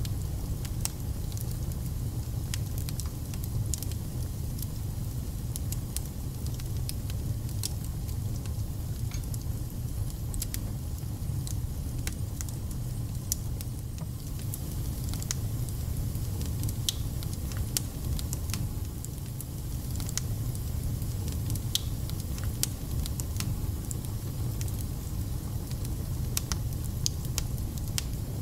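Wood fire burning in a fireplace: a steady low rumble with frequent sharp crackles and spits from the burning logs.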